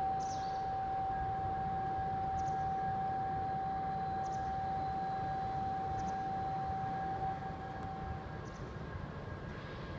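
A long, steady warning tone at a single pitch as the Shinkansen pulls out. It holds for about seven seconds, then fades away, over a low steady rumble.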